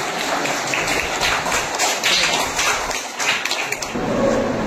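Scattered applause from a small group of people, many irregular claps, giving way to voices about four seconds in.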